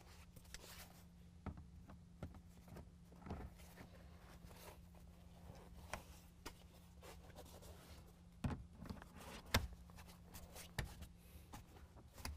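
Faint handling noises as fabric-covered headrests are fitted onto a truck's rear seat: soft rustling with scattered light clicks and knocks, a few sharper ones in the second half, over a faint steady hum.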